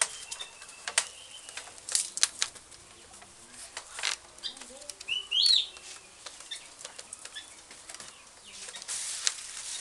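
Split rattan strips rustling and scraping against a bamboo pole as they are wrapped and tucked around a joint, with scattered sharp clicks. About halfway through there is a short high chirp.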